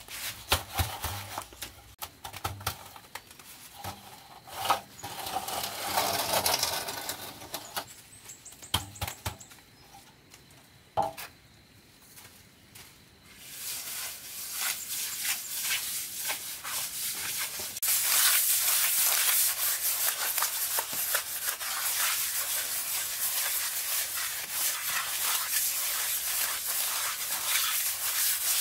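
Fresh cement render on a brick wall being rubbed and scraped smooth, a scratchy gritty rubbing. It comes in scattered strokes with one sharp knock at first, then after a short lull runs on continuously, louder over the last third.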